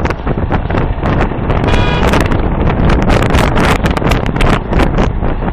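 Heavy wind buffeting the microphone of a moving car, with road noise from the car underneath. A brief high-pitched tone sounds about two seconds in.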